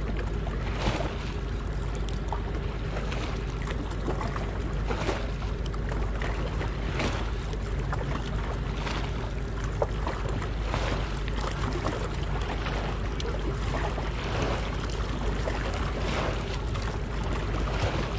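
Wind rumbling steadily on the microphone, with small waves lapping at the water's edge about once a second.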